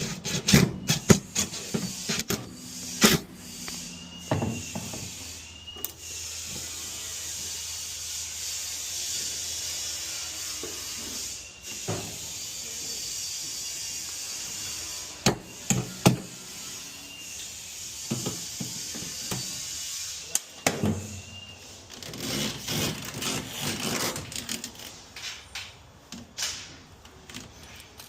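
Installation hand work on electrical fittings: scattered clicks and knocks of parts and tools being handled, with a long stretch of steady rubbing or scraping hiss in the middle and another shorter one near the end.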